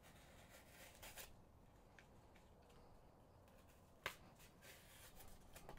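Faint soft rasping of a freshly sharpened tanto knife blade slicing thin strips off corrugated cardboard, a sharpness test of the edge. There is a single sharp click about four seconds in.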